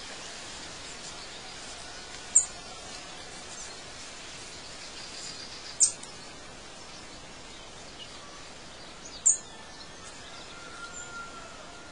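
Three short, high bird chirps, a few seconds apart, over a steady background hiss.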